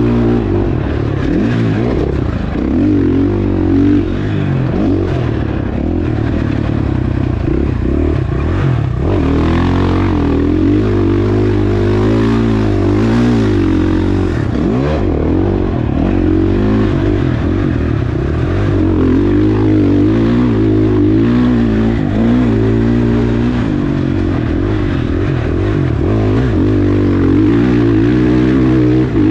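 KTM 450 SX-F's single-cylinder four-stroke engine being ridden on and off the throttle, its revs rising and falling over and over.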